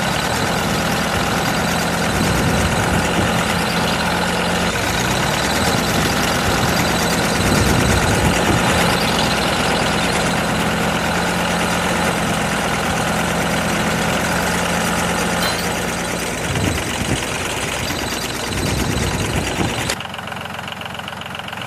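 A motor or engine running steadily with a low hum and a dense rattly noise over it, dropping away near the end.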